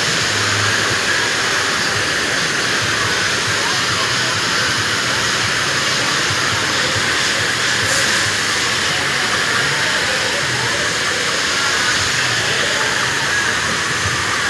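Water rushing steadily down a water ride's splash-down chute: a constant hiss of flowing water and spray.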